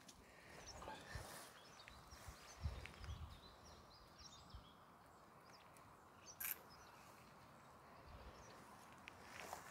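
Faint outdoor quiet with scattered small bird chirps, a few low thumps in the first three seconds and one sharp click about six and a half seconds in.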